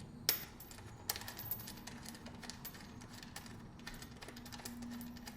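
Rapid, irregular clicking of a ratchet wrench and metal fastener being worked, as the middle mounting bolt of a motorcycle slip-on exhaust is tightened.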